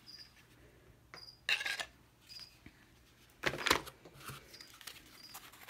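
Handling noises as a small knife in a plastic sheath is put back into a cardboard box among plastic packaging: a few short rustles and clicks, the loudest about three and a half seconds in.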